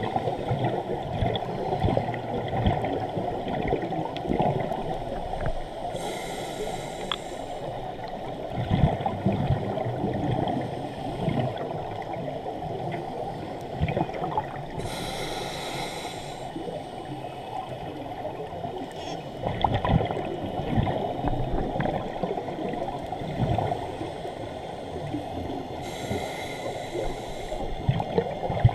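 Underwater noise, muffled through a GoPro's underwater housing, with three hissing bursts of exhaled bubbles from a scuba regulator, about ten seconds apart.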